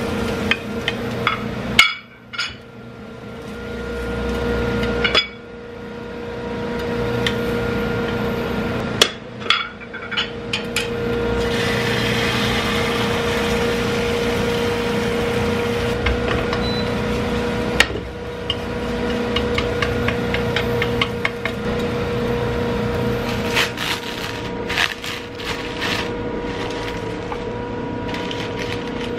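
Cooking on an induction hob: a wooden spatula knocks and scrapes against a square frying pan in sharp clicks and taps, and egg batter sizzles in the pan, louder about midway. A steady hum runs underneath.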